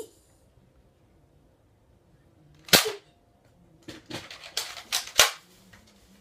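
Nerf foam-dart blasters firing: one sharp pop a little under three seconds in, then a quick run of about five more pops over the next couple of seconds.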